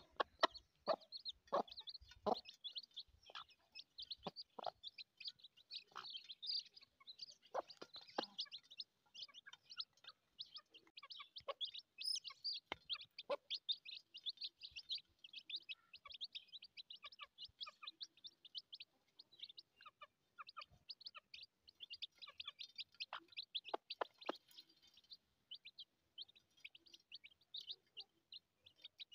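Newly hatched chicks peeping constantly in quick, high cheeps, overlapping sharp taps of beaks pecking feed off a metal plate, the taps most frequent in the first several seconds.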